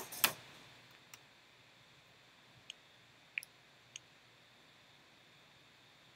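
A few sharp computer mouse clicks: two loud ones at the start a quarter second apart, then four fainter ones spread over the next few seconds, over faint background hiss.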